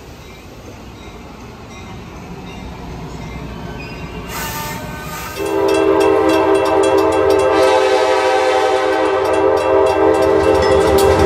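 Metra commuter train approaching with a rising rumble, then sounding its air horn about five seconds in: a loud, sustained chord of several notes.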